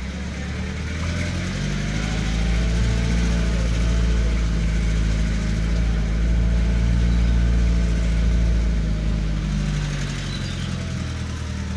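Car engine heard from inside the cabin, speeding up about a second in, running steadily louder through the middle, then easing off near the end.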